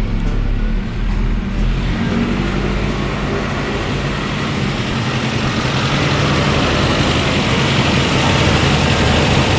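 Suzuki Vitara engine idling with the air conditioning switched on; a steady rushing hiss grows louder from about two seconds in.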